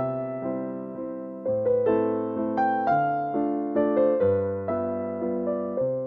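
Background piano music: a gentle melody of notes struck one after another and left to fade over low sustained chords.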